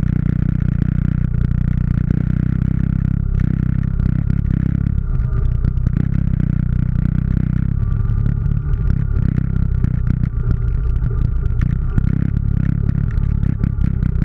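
ATV engine running steadily, with the clatter of the machine jolting over loose rock.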